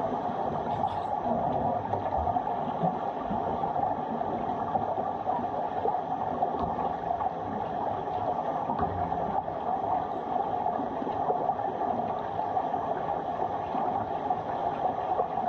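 Steady underwater noise of swimming-pool water picked up by a camera lying on the pool bottom: a dense even hiss and gurgle with scattered faint clicks.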